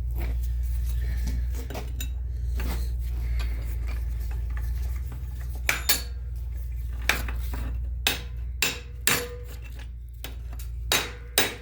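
Light metal clinks and knocks on a seized Subaru Impreza rear brake slider pin and bracket, turning about eight seconds in into a row of sharp hammer strikes, roughly two a second. A steady low hum runs underneath.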